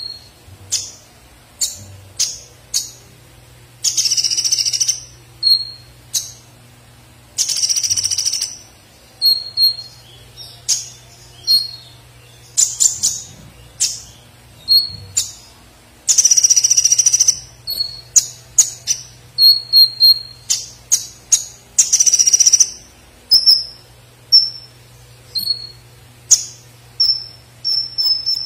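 Caged male purple-throated sunbird singing: buzzy high trills about a second long every few seconds, with many short sharp chirps between them. Its song is trained with fills imitating woodpecker calls.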